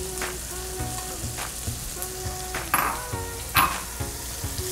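Diced chicken and sliced mushrooms sizzling in a frying pan, stirred with a wooden spatula, with a few sharper scrapes and clatters, the loudest two about three seconds in and near the end. Soft background music underneath.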